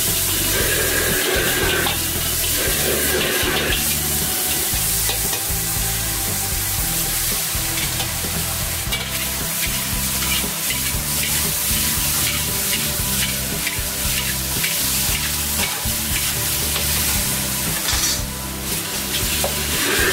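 Stir-frying in a wok over a gas wok burner: food sizzling, with a metal ladle scraping and tapping against the wok. In the middle stretch the ladle strokes come regularly, about twice a second.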